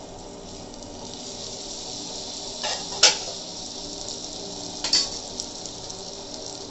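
Butter sizzling steadily as it melts and foams on a hot dosa pan, with a few sharp clinks of a metal spoon against the pan about three seconds in and again near five seconds.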